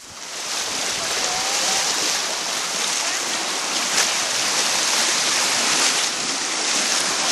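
Horse wading through a river, its legs churning the water in a steady, loud splashing rush that sets in abruptly.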